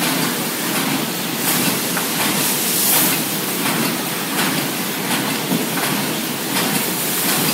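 Pocket handkerchief-tissue packing machines running, a steady mechanical din with regular clacking strokes. The workers put the noise down to a cam worn by over two millimetres, so that its part swings a lot.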